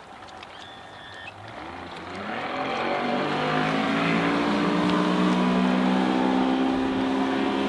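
Mariner 60 hp BigFoot two-stroke outboard opening up as the boat accelerates: quiet at first, the engine note climbs in pitch over about two seconds, then holds steady and loud at speed.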